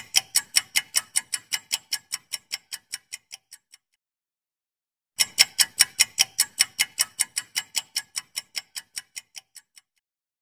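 Quiz countdown-timer sound effect of a clock ticking fast, about six ticks a second. Each run starts loud and fades away over about four seconds. It stops, then starts again about five seconds in and fades out near the end.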